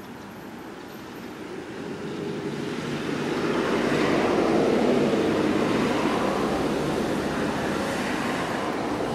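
Noise of a passing motor vehicle, a rumble that builds over the first few seconds and then holds steady.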